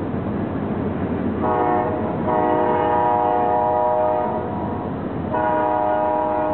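Chime horn of a CSX freight train led by a pair of GE AC44CW locomotives, blowing a short blast and then two long ones, the last still sounding at the end. Under it is the steady rumble of the long train rolling by.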